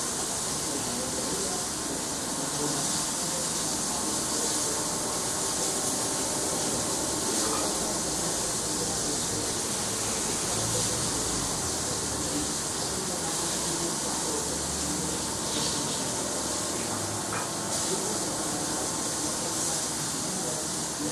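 Food sizzling in a frying pan over a lit gas burner: a steady hiss throughout, with a few light clicks.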